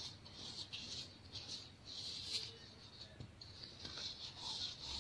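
Pressed chunks of baking soda crushed and crumbled in the hand: soft, irregular crunching and gritty crumbling, with a sharper crack about halfway through.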